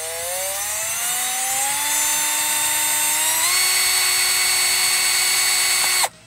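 Handheld power drill motor whining as it speeds up, rising in pitch and then holding steady, stepping up in pitch again about three and a half seconds in, and cutting off suddenly near the end, while a small bit drills out the old emblem's plastic mounting pins in the steering-wheel airbag cover.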